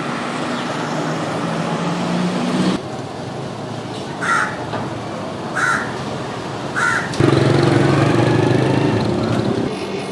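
A crow cawing three times, about a second and a half apart, over the steady hum of street traffic and engines.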